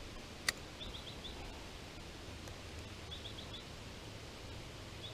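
A bird calling a quick run of three or four high notes, repeated about every two seconds, over faint outdoor ambience. One sharp click about half a second in.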